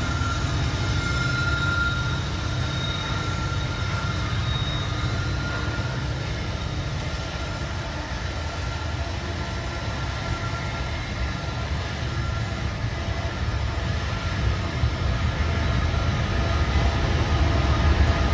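Diesel freight train passing close by: a steady low rumble as the locomotives go past, then tank cars and flatcars rolling by, with a faint high steady whine over it. It grows a little louder near the end.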